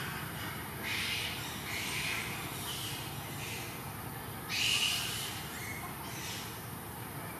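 Several short, high animal calls, about one a second, the loudest about four and a half seconds in, over a steady background hiss.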